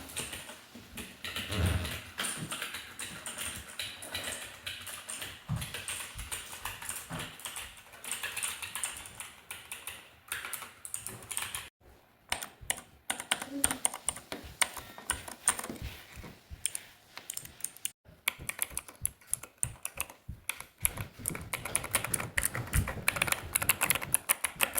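Keycap fidget toys clicked rapidly and repeatedly, like fast typing on keyboard switches, in three stretches broken by short gaps about 12 and 18 seconds in. The last stretch has sharper, brighter clicks.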